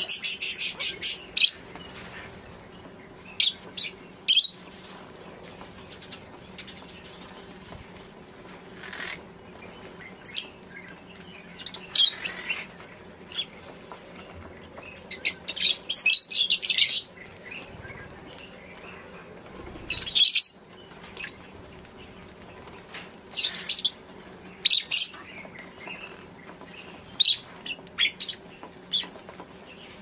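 A flock of lovebirds calling with shrill, high-pitched chirps in short bursts: a fast run of calls at the start, then further bursts every few seconds.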